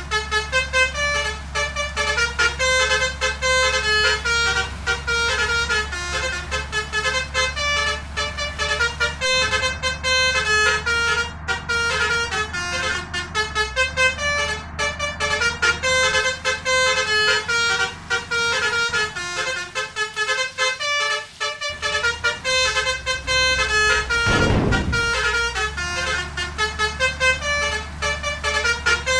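Basuri 'telolet' musical air horn playing a fast tune of short notes stepping up and down, over a steady low engine hum. Near the end there is a brief, louder low rush.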